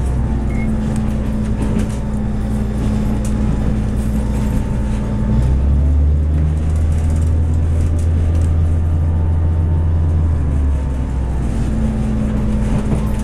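Diesel multiple unit heard from inside the passenger car while under way: a steady low drone of the underfloor diesel engine with wheel-on-rail running noise. The drone swells for about five seconds in the middle, then eases back.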